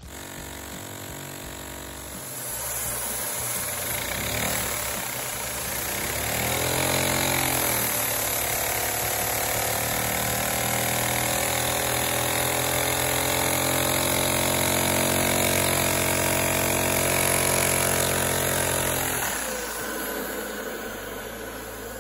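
Single-cylinder LEGO butterfly vacuum engine running fast on a vacuum cleaner's suction, its piston and flywheel making a rapid, even clatter over the vacuum's drone. The pitch dips and swings back up a few seconds in, holds steady, then the sound dies down near the end.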